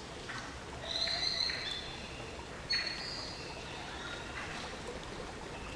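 Birds calling in short, high whistled notes, loudest about a second in and again near three seconds, over a steady hiss of rain.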